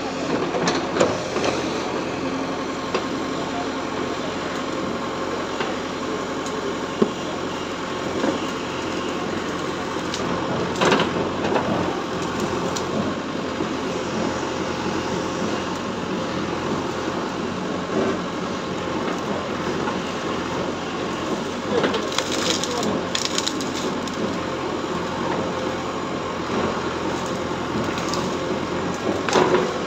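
JCB backhoe loader's diesel engine running steadily while its bucket scrapes and crushes brick rubble and knocks at a brick wall. Bricks crack and crash several times: about a second in, around eleven seconds, around twenty-two seconds and near the end.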